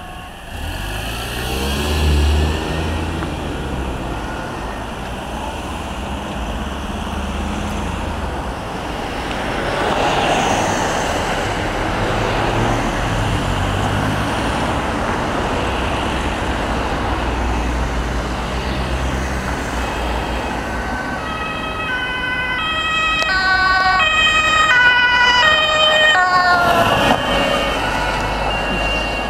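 Road traffic passing, then an ambulance's two-tone siren coming in about two-thirds of the way through, growing loud as the ambulance draws near on an urgent run.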